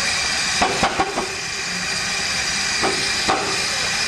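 Fifteen-inch-gauge miniature steam locomotive hissing steadily with escaping steam. Sharp knocks break through the hiss: four in quick succession about a second in, and two more near the end.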